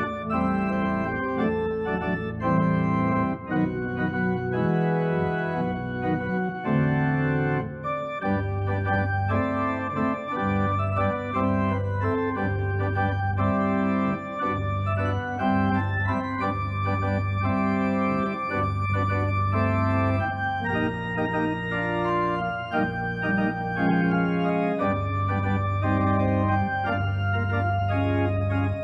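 Organ music: slow sustained chords over long-held bass notes.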